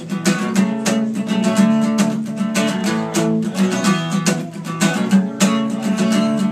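Acoustic guitar strummed in a steady, driving rhythm: the instrumental intro of an upbeat song.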